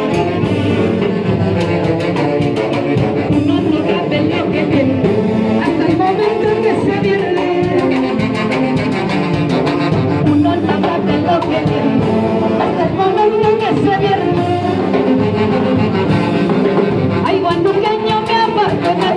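A live saxophone orchestra playing dance music with timbales, amplified through PA speakers, while a woman sings into a microphone over the band.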